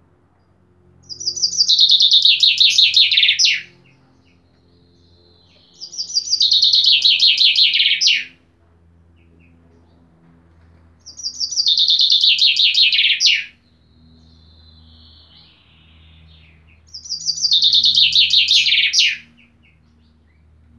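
Common chaffinch singing its full song four times, about every five seconds. Each song is a fast trill of about two and a half seconds that falls in pitch and ends in a quick flourish, with a fainter phrase between the third and fourth songs.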